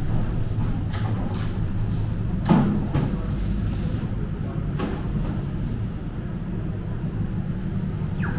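City street ambience: a steady low rumble of traffic with scattered short knocks and clicks, and one brief falling-pitch sound about two and a half seconds in.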